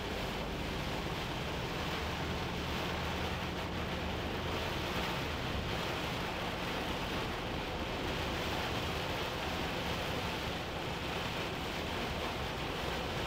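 Hino Profia heavy truck driving through torrential rain: a steady hiss of heavy rain and tyres on the wet road, with the diesel engine's low drone underneath.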